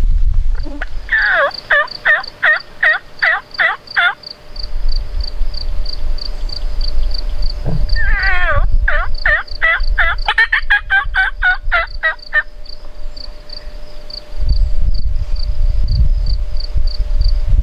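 Wild turkey gobbler gobbling twice, each a rapid rattling gobble of about three seconds, the first about a second in and the second near the middle. A faint high ticking runs about three times a second throughout, and wind rumbles on the microphone at the start and near the end.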